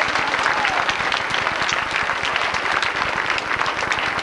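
A crowd applauding, many hands clapping together.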